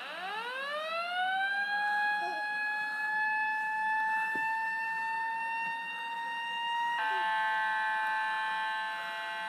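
An electronic tone that dips, then rises in pitch like a siren winding up, and holds steady for several seconds. About seven seconds in it switches abruptly to a sustained chord of several steady tones.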